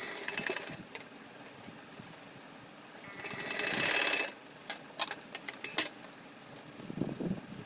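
Sewing machine running in short stitching bursts: a brief one at the start, then a longer run of about a second that builds up and stops abruptly. A handful of sharp mechanical clicks follow.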